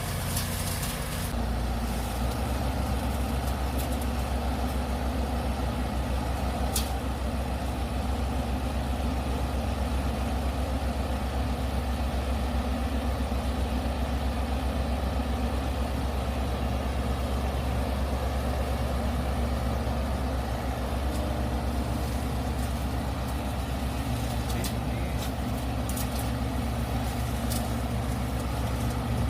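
Engine running steadily at constant speed, a low drone with a hiss over it and a few short clicks.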